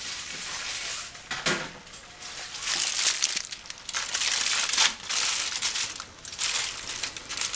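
Aluminium foil crinkling and crackling as a foil-wrapped fish packet is handled and pressed down on an electric griddle, loudest in spells from about two and a half to five seconds in.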